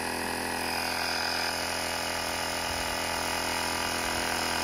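A steady motor hum with several even tones, holding one pitch without change.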